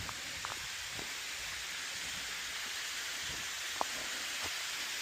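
Waterfall rushing in a steady hiss-like roar, with a sharp click just before four seconds in.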